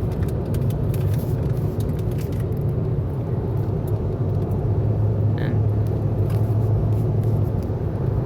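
Steady low rumble of a moving car heard from inside the cabin: engine and tyre road noise, with a few faint scattered clicks and one brief high tone partway through.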